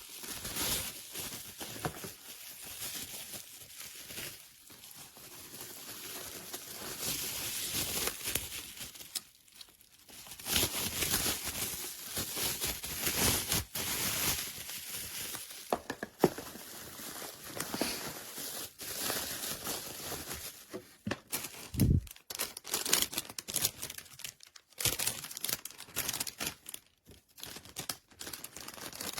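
Packaging being handled: irregular crinkling and rustling, with a sharp knock about two-thirds of the way through.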